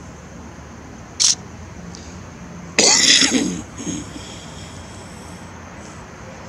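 A person coughs harshly about three seconds in, with a smaller second cough just after. A short hiss comes about a second before.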